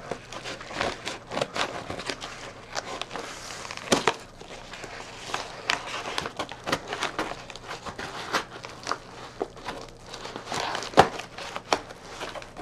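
Scissors snipping through a padded mailing bag, with irregular crinkling and crackling of the bag as it is handled and cut, a few sharper snips standing out.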